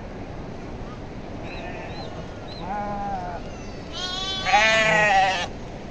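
Bleating from a flock of sheep and goats: a shorter quavering bleat about halfway through, then a longer, louder one near the end.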